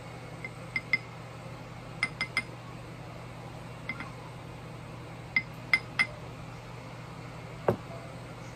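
Light glass clinks, mostly in quick clusters of two or three, as a small bottle of red food coloring taps against the rim of a glass cup while the coloring is shaken in. Near the end there is one duller knock as a bottle is set down on the table.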